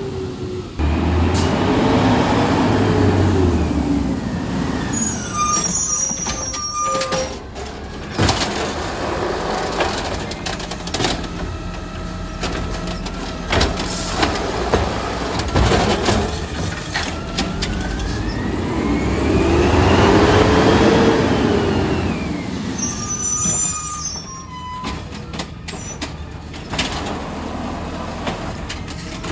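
Automated side-loader garbage truck at work: its diesel engine revs up and falls back twice to drive the hydraulic arm and move up the street, with clunks and knocks from the cart handling, short high squeals and a brief air-brake hiss.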